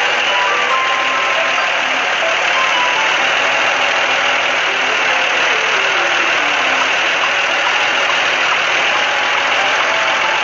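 Steady engine-running sound effect of an animated construction vehicle: an even, unbroken noisy drone, with faint melodic music notes underneath.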